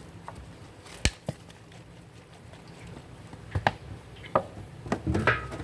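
Sharp knocks and clinks of metal tools and engine parts being handled: two about a second in, then several more in the last two seconds.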